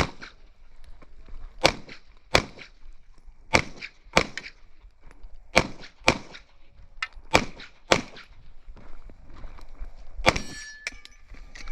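Airsoft pistol shooting a USPSA stage: about ten sharp shots at uneven intervals, some in quick pairs, as the shooter moves between targets. Near the end a shot is followed by a short ringing tone.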